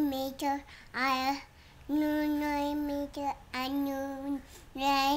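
A young boy singing: several phrases of long held notes with short breaks between them, the longest note lasting about a second.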